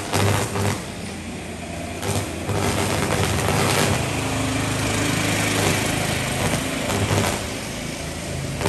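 Sustained electrical arc on high-voltage distribution equipment: a loud crackling buzz over a strong low mains hum, with a few sharp cracks in the first couple of seconds. It is the sound of a short-circuit fault burning at the insulators and switch gear.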